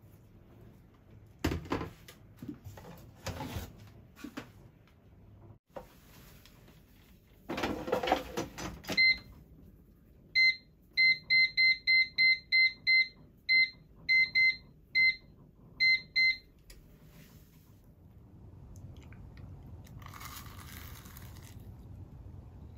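Metal air-fryer basket clattering as it is handled and slid into the fryer, then the digital air fryer's touch panel beeping about fifteen times, short identical high beeps in quick runs, as the temperature is set to 180 degrees and the time to 12 minutes.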